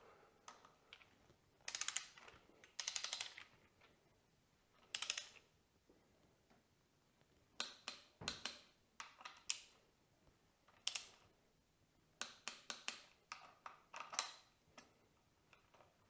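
Ratchet torque wrench tightening the fork clamp pinch bolts, its pawl clicking in short runs of rapid clicks with pauses between the runs.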